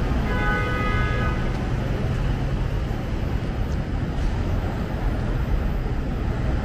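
Steady city traffic rumble on a street under an elevated railway, with a brief high-pitched tone lasting about a second near the start.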